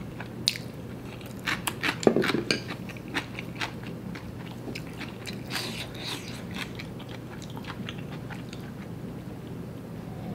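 A person chewing a mouthful of noodles, with wet mouth clicks and smacks, busiest about two seconds in and lighter afterwards.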